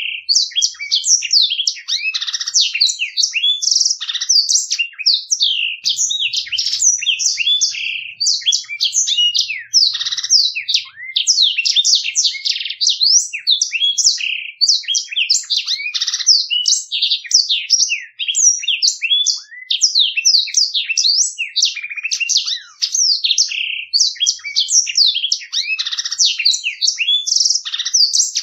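Black-throated canary (blackthroat) singing a long, fast, unbroken song of rapid chirps and clear rolling trills.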